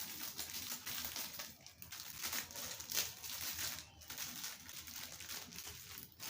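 Plastic biscuit wrapper crinkling and rustling irregularly as the packet is opened, with a sharper crackle about three seconds in.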